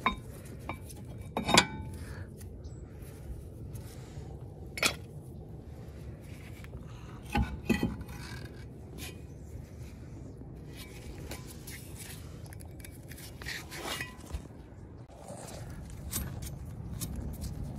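Metal brake parts and hand tools clinking and scraping as a car's front brake caliper and rotor are taken off the hub. There are a few sharp clinks, the loudest near the start and about eight seconds in, with lighter ticks and scrapes between.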